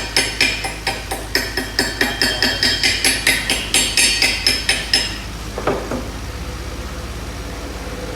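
Chipping hammer striking steel in quick succession, about four to five ringing metallic taps a second, as slag is knocked off a weld. The taps stop about five seconds in, followed by a single clank near six seconds.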